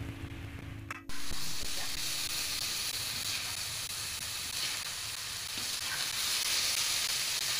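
Potato, chicken liver-gizzard and petai sambal goreng sizzling steadily in a wok as its thickening sauce cooks down, stirred with a metal spatula; the sizzle starts suddenly about a second in.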